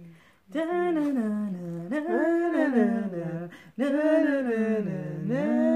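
A woman's voice singing a wordless tune in long notes that slide up and down, broken into a few phrases.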